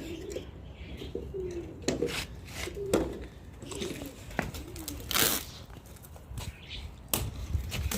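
Domestic pigeons cooing several times in low, bending calls, with scattered light clicks and knocks and a brief rustle about five seconds in.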